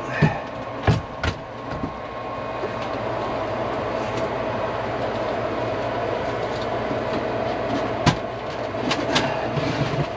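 A water heater is handled and set into place on a wooden shelf. Several knocks and bumps come near the start, one about 8 seconds in and a couple more shortly after, over a steady mechanical hum.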